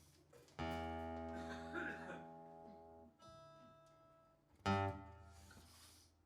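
Guitar chords strummed one at a time and left to ring out, three strums in all, the last one the loudest.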